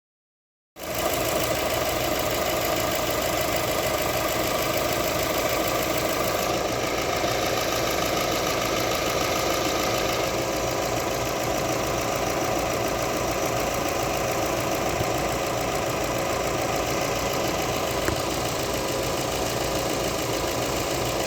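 2006 Subaru Legacy 2.0's flat-four engine idling steadily, starting about a second in, run to burp air out of the cooling system.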